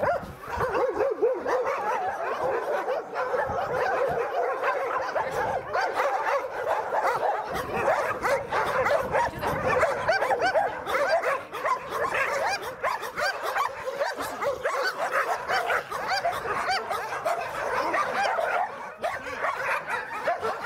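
A crowd of shelter dogs barking excitedly all at once, many short overlapping barks and yelps running together into a continuous din.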